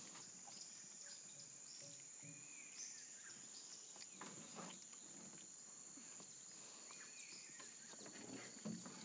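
Faint tropical forest ambience: a steady high-pitched insect drone, with a few faint bird chirps and small scattered ticks.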